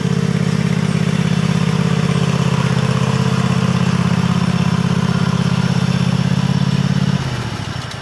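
Cub Cadet riding lawn tractor engine running steadily with a fast, even pulse, then winding down about seven seconds in as the tractor stops.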